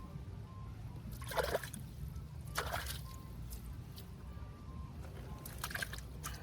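Water splashing in a few short spurts, four over several seconds, over a low steady hum.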